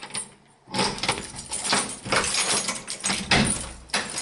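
A key turning and rattling in a front door's rim lock, with a quick run of clicks and knocks starting about a second in as the door is unlocked.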